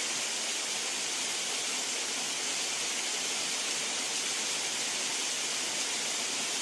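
Steady rush of running water, an even hiss that stays the same throughout.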